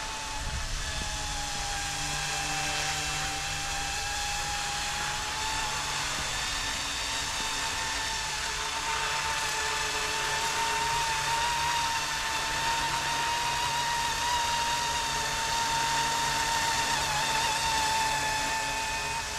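Goosky E2 electric RC scale helicopter in low flight: a steady high-pitched whine from its motor and rotors, wavering slightly in pitch.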